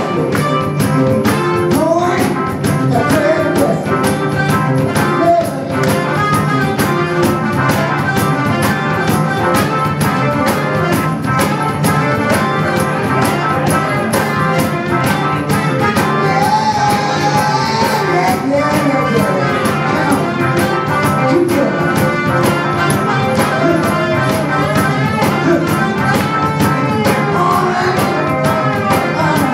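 Live band playing: electric guitars, bass guitar, drum kit and a singer, over a steady drum beat.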